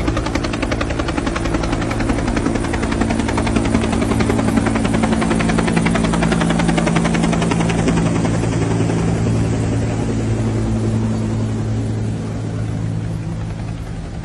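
Helicopter flying over, its rotor giving a fast, steady chop over a low hum; the chop grows fainter in the last few seconds.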